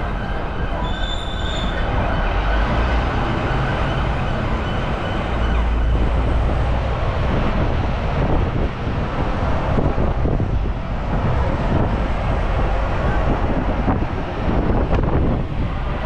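Steady loud rumble and rattle of a moving vehicle, with a brief high squeal about a second in.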